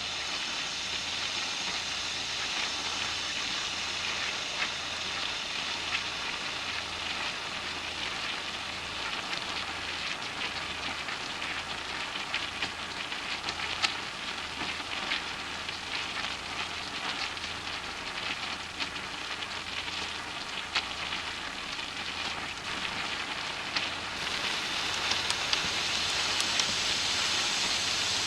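Food frying in hot oil: a steady sizzle with many small crackles and pops, getting a little louder about 24 seconds in.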